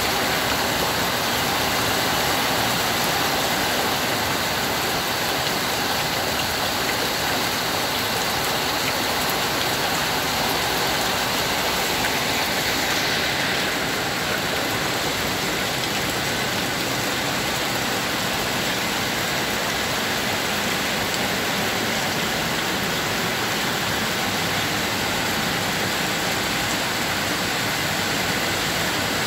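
Steady rain falling on dense foliage and a pond, a dense even hiss of drops splashing on leaves and water. It softens slightly about thirteen seconds in.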